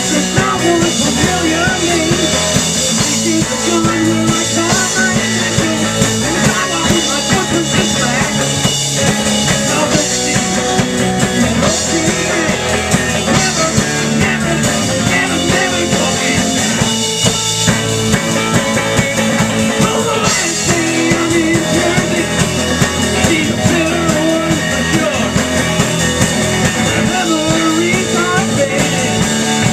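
A rock trio playing loud and driving: electric guitar, electric bass and drum kit, with a man singing in stretches.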